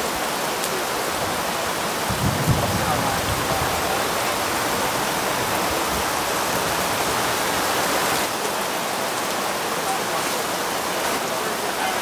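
Heavy rain falling steadily onto waterlogged grass and standing water, with a brief low rumble about two seconds in.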